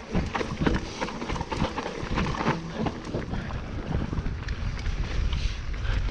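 Mountain bike riding fast down a dirt singletrack: tyres on dirt and leaf litter, with the bike knocking and rattling over bumps throughout, and wind buffeting the microphone.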